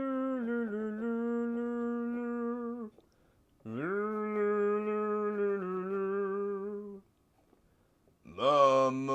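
Voices humming long held notes of a carol: two sustained phrases of about three seconds each, separated by short pauses, then several voices come in together in harmony near the end.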